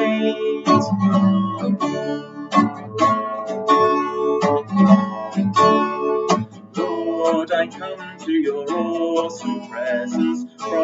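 Acoustic guitar strumming chords in a steady rhythm as accompaniment to a hymn, with a voice singing near the end.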